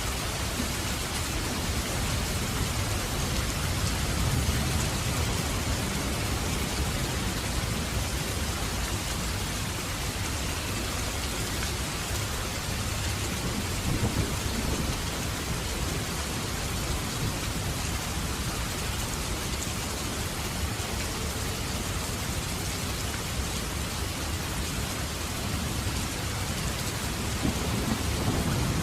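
Heavy rain falling steadily: a dense, even hiss of raindrops. Underneath is a deeper rumble that swells a little a few seconds in, about halfway through, and near the end.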